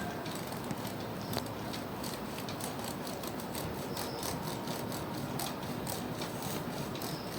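Lenovo G570 laptop keyboard keys being pressed one after another during a key test: a string of irregular light clicks over a steady background hiss.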